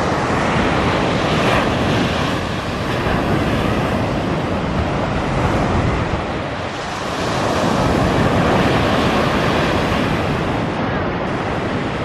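Small sea waves breaking and washing up a sandy beach: a steady, loud rush of surf that eases briefly about two-thirds of the way through before the next wave swells in. Wind rumbles on the microphone underneath.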